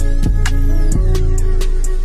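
Background music: a rap/trap instrumental beat with deep, sustained bass notes and sharp percussion hits at a steady pulse.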